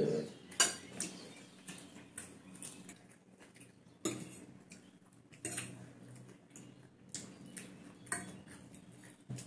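Metal forks clinking and scraping on ceramic plates of noodles, in scattered sharp clinks roughly a second apart, with a faint low hum underneath.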